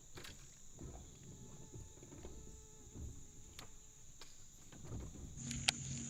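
A steady, high-pitched chorus of insects, with scattered sharp clicks. A low steady hum comes in near the end.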